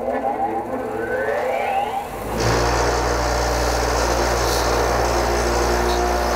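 Bench grinder with a wire wheel: the motor's whine rises as it spins up. From about two and a half seconds in, the wire wheel scrubs steadily against a rusty parking brake part to clean it.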